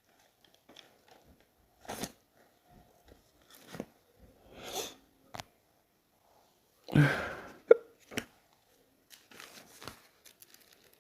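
A man with strong hiccups: one sharp hiccup about three-quarters of the way through, right after a loud rush of breath, with softer breaths and small mouth clicks scattered through the rest.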